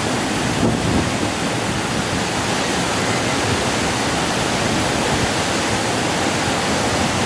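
Waterfall rushing: fast, heavy water pouring down in a loud, steady roar of noise close to the microphone.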